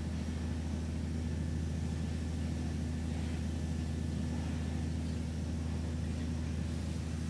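A steady low engine hum, running evenly without change.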